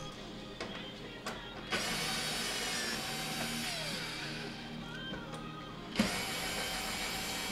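Cordless drill-driver backing out the Torx mounting screws of a dishwasher door, with sharp clicks as the bit engages, the loudest about six seconds in, over soft background music.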